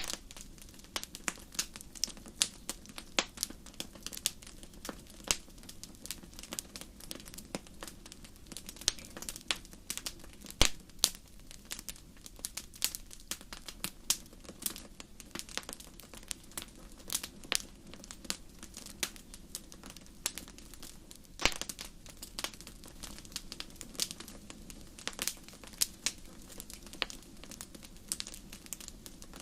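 Wood fire crackling steadily, with irregular sharp pops and snaps over a low, even rumble of the flames.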